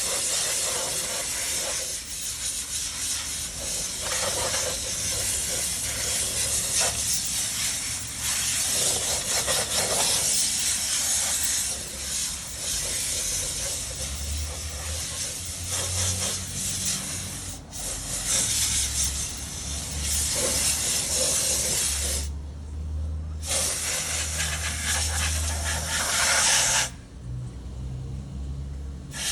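Pressurized spray hissing in long blasts while oily wheel-hub parts are degreased, breaking off briefly about three quarters of the way through and stopping shortly before the end.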